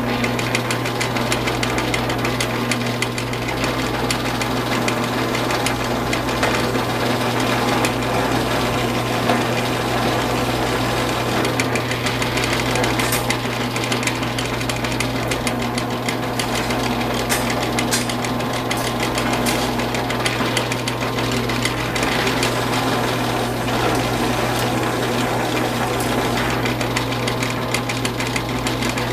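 Metalworking machine spindle running steadily with a constant motor hum while a countersink bit cuts countersinks for bolt holes in a steel angle rail, with a rough, irregular chatter of the cutter on the steel.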